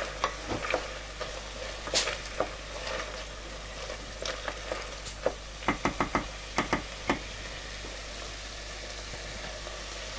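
Canned peas with onion and garlic sizzling gently in oil in a stainless steel pot, the steady hiss of braising. A stirring utensil knocks against the pot now and then, with a quick run of about six clicks a little past halfway.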